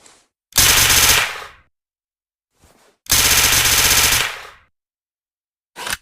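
Suppressed Uzi submachine gun firing two full-auto bursts, a short one about half a second in and a longer one about three seconds in, each trailing off quickly. Faint clicks come between the bursts, and a single short report comes near the end.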